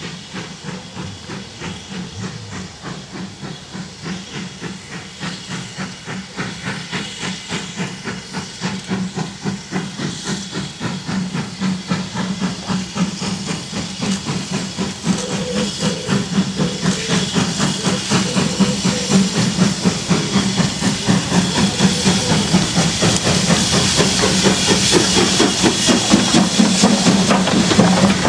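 Steam locomotive working a passenger train toward the listener: rhythmic exhaust beats and steam hiss, growing steadily louder as it approaches.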